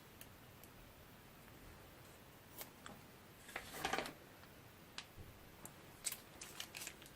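Light handling noises: scattered small clicks, a short rustling burst about three and a half seconds in, then a quick run of clicks near the end.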